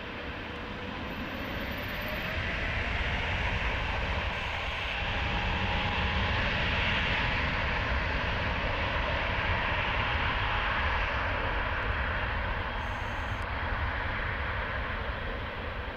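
KLM Boeing 777-300ER's twin GE90 turbofans powering up for takeoff: a broad jet rumble and rush that builds over the first few seconds and holds loud through the middle, with a faint rising whine early on.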